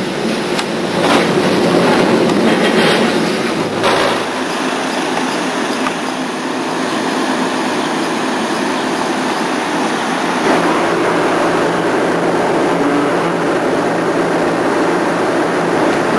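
Electric interurban railcar running along the track, heard from on board: a steady running noise with a few knocks in the first four seconds. About four seconds in the sound changes and thins to a steadier, lighter noise.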